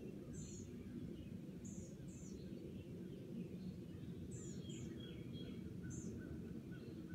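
Birds chirping: short, high chirps every second or two, with a few lower notes in the middle, over a steady low outdoor rumble.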